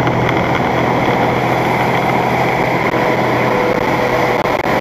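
Steady road and engine noise inside a truck's cab at highway speed on a wet road, with a constant low hum. The sound briefly cuts out for an instant near the end.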